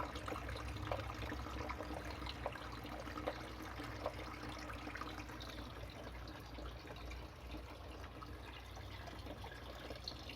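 Faint steady trickling and dripping of water, with scattered light clicks, most of them in the first half.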